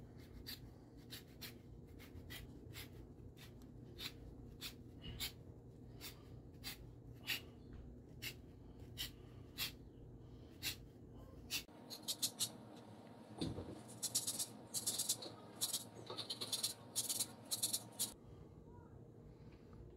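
An orange being zested on a handheld grater: short scraping strokes about twice a second, then a quicker, brighter run of strokes in the second half.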